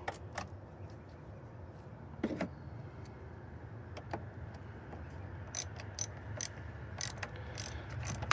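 A few scattered clicks and knocks of tool handling, then, from about five and a half seconds in, a hand ratchet clicking in short strokes as the battery terminal nut is tightened.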